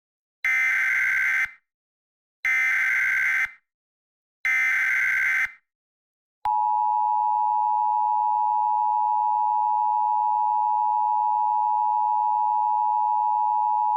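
Emergency Alert System header: three one-second bursts of screeching SAME data tones, two seconds apart, then about six seconds in a long, steady attention tone just under 1 kHz that holds on unchanged.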